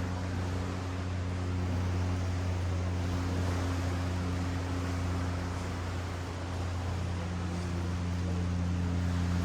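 Ocean surf washing steadily over a beach, under a steady low mechanical hum that holds one pitch with a couple of overtones.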